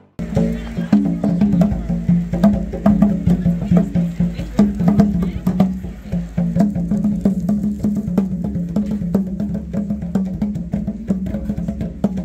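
A pair of goblet-shaped hand drums on a wooden stand played with bare hands: a fast, continuous rhythm of sharp slaps over a deep ringing tone.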